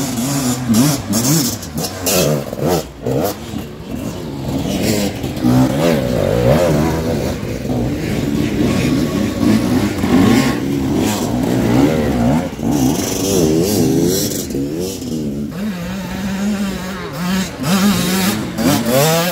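Enduro dirt bike engines revving hard under load on a steep dirt hill climb, the pitch rising and falling again and again as the throttle is worked.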